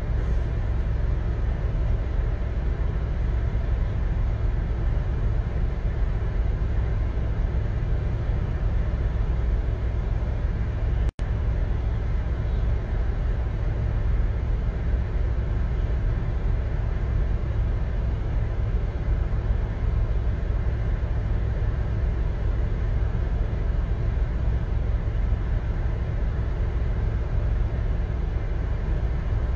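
Steady low rumble of car cabin noise, engine and road, heard from inside the car. The sound cuts out for an instant about eleven seconds in.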